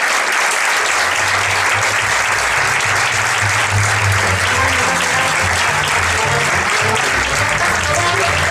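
Audience applauding steadily, with music carrying a low bass line coming in under the clapping about a second in.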